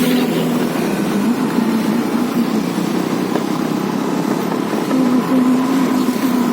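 Hero Destini 125 scooter's single-cylinder engine running while being ridden, its pitch wavering slightly up and down, over a steady rushing noise.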